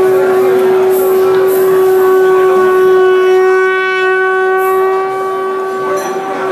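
Conch shell (shankh) blown in one long, steady held note with ringing overtones, over a murmur of crowd noise. It is the call traditionally sounded before a Panchari melam begins.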